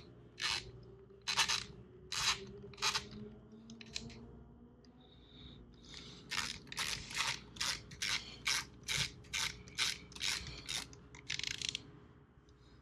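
Torque wrench ratcheting in short strokes while tightening the bolts of a jet-ski engine's lower cover, set to its lowest torque for the first tightening pass. A few spaced strokes come first, then after a pause a quicker run of about fifteen strokes, two or three a second.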